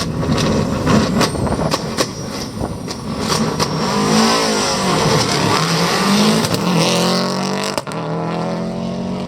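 Subaru Impreza WRC rally car's turbocharged flat-four engine revving and accelerating hard away. There are sharp pops and bangs over the first few seconds, then a rising engine note broken by gear changes, with a brief cut near the end.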